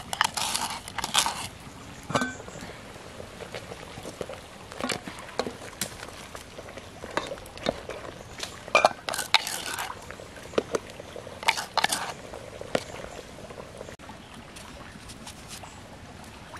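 Wooden ladle scraping and knocking against a clay mortar and a metal cooking pot: scattered clicks and short scrapes.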